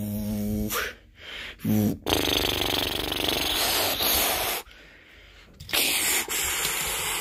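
A person making aircraft sound effects with the mouth: a steady hummed engine drone, a short swooping tone, then long hissing, blowing noises with a gap in between.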